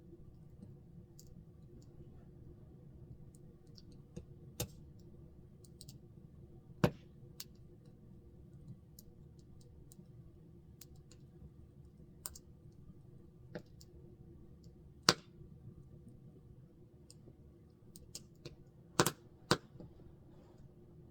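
Wood fire crackling: scattered soft ticks with a few sharp, loud pops at irregular intervals, two close together near the end, over a low steady background.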